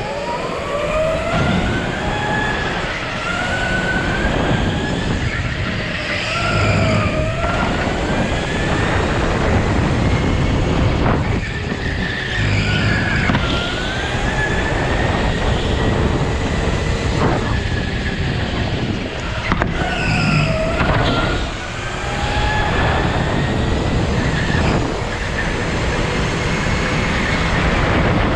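Go-kart at racing speed, its motor note repeatedly rising in pitch as it accelerates and dropping into the corners, over a steady rush of tyre and wind noise, with some tyre squeal.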